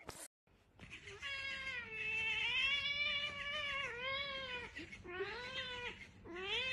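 Tabby cat yowling: one long drawn-out call lasting about three seconds, then a shorter meow and a third rising call near the end.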